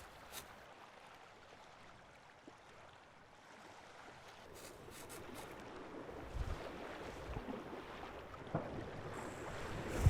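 A couple of short clicks, then a rushing noise that rises gradually from near quiet, with a few soft low thuds in its second half.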